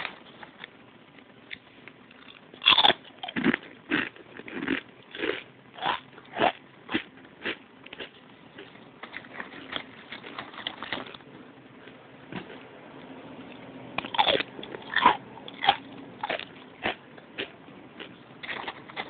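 Potato chips being crunched and chewed close to the microphone: a run of sharp, crisp crunches about one or two a second, loudest about three seconds in and again around fourteen to fifteen seconds.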